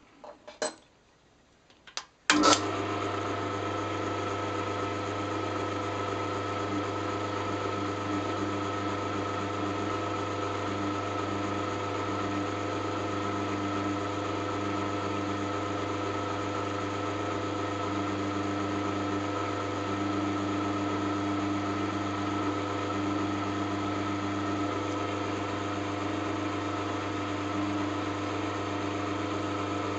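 A couple of light clicks, then a sharp click about two seconds in as the drill press is switched on, and its electric motor runs with a steady hum, spinning a 1.5 mm bit at about 500 rpm.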